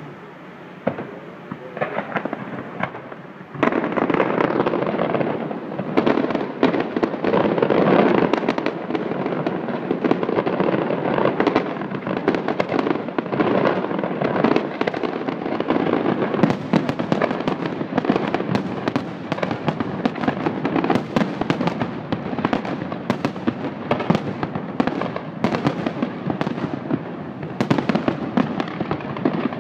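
Fireworks display: a few scattered bangs at first, then from about three and a half seconds in, a dense, continuous barrage of bangs and crackling shells.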